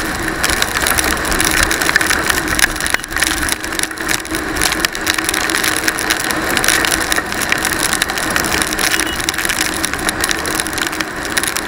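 Motorcycle riding through heavy rain: the engine runs under a steady hiss of wind and tyre spray on the wet road, with a constant crackle of raindrops striking the camera.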